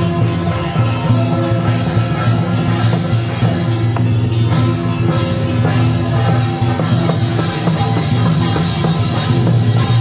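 Loud music with a drum kit keeping a beat under sustained instrument tones.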